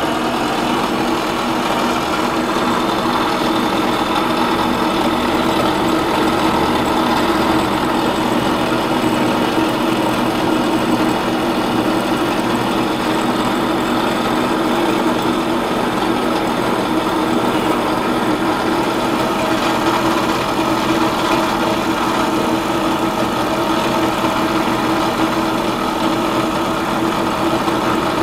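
Benchtop mill-drill spindle running steadily at speed, a 1/4-inch four-flute end mill cutting cured epoxy bedding compound out of a rifle stock's action recess down to the top of the pillar.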